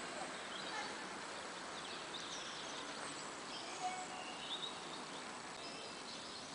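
Small birds chirping here and there over a steady outdoor background hiss.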